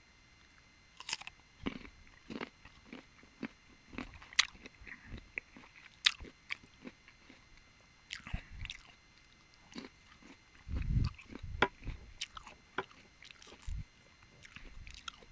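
Close-miked eating of mango with sautéed shrimp paste: sharp crunching bites with chewing between, and a heavier burst of chewing about eleven seconds in.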